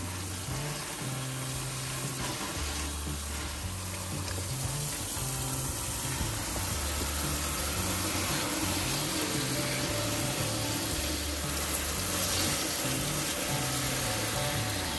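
Water hissing from a garden hose spray nozzle onto the engine and its hoses, stronger through the middle of the stretch, over background music with low bass notes.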